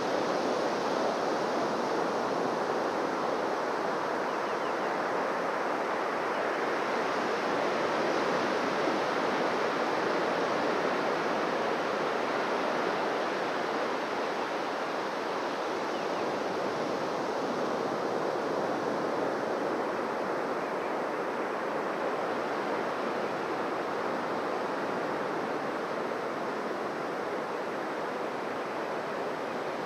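Surf washing onto a beach: a steady, continuous wash of breaking waves that swells a little and eases, with no separate crashes.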